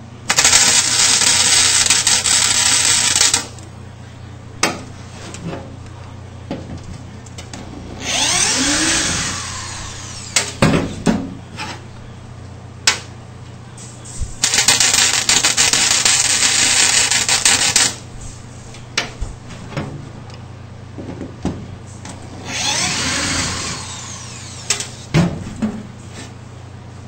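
Two MIG plug welds on a car floor pan, each a dense arc crackle of about three seconds, one at the start and one about halfway. Between them a power drill runs twice for about two seconds, its pitch sliding up and down, as screws are taken out, with scattered sharp clicks and knocks and a steady low hum throughout.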